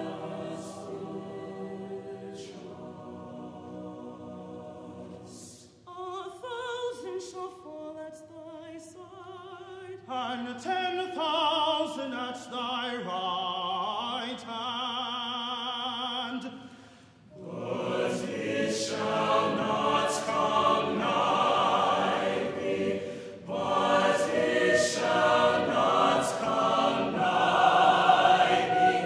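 Mixed choir singing a gospel choral anthem live. It begins with a soft held chord, moves into quieter, moving lines sung with vibrato, and after a brief break a little over halfway through, the full choir sings out loudly.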